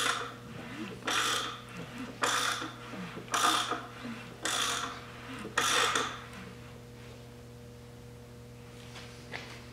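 Ratchet wrench clicking in six strokes about a second apart as it turns a Triumph TR6 straight-six's crankshaft by hand, bringing the first cylinder to top dead centre on its firing stroke. The strokes stop about six seconds in, leaving a steady low hum.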